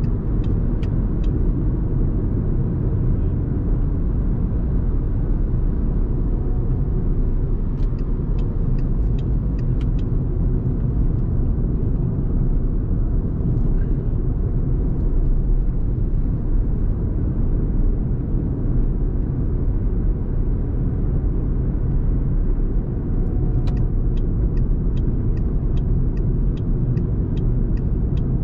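Steady low road and tyre rumble heard inside a moving car's cabin at expressway speed. Runs of quick, regular clicks from the turn indicator come near the start, around eight to ten seconds in, and again near the end.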